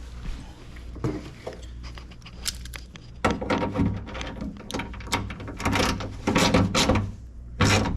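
Jeep Liberty front power window, with a newly fitted regulator, being run in the door: the motor hums, then irregular knocks and rattles get louder from about three seconds in as the glass and regulator travel.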